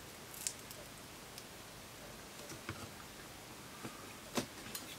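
Scattered faint clicks and light scrapes of a metal pry tool and fingers against an iPhone 5C's case and glued-in battery as the battery is levered up against its adhesive strips; the loudest click comes near the end.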